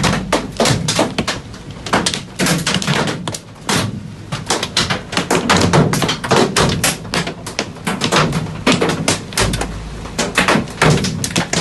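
Fist-sized hailstones pelting the metal roof and body of a van, heard from inside: a dense, irregular barrage of loud hard impacts.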